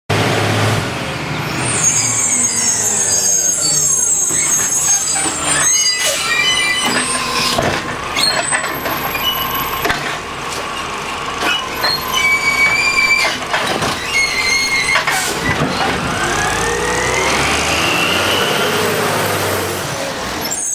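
Mack automated side-loader garbage truck working a curbside pickup. Its engine drops in pitch as it pulls up, with air-brake hiss. The hydraulic arm lifts and dumps a wheeled cart with several sharp bangs in the middle, then the engine revs up with a rising pitch as the truck pulls away.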